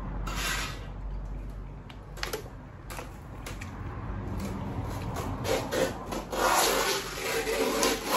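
Crinkly rustling of wrapping as someone unwraps something, building from about halfway and loudest near the end, with a few short clicks before it.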